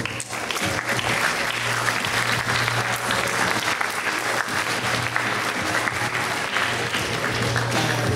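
Theatre audience applauding, the even clatter of many hands clapping at the end of a scene, with a steady low hum beneath.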